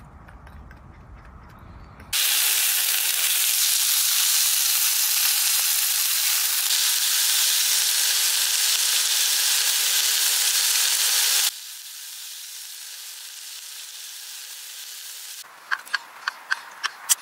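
Meat searing in a frying pan on a camping gas stove: a loud, steady sizzle that starts suddenly about two seconds in and drops to a quieter sizzle later on. Near the end comes a quick run of sharp metal clicks as tongs work the pan.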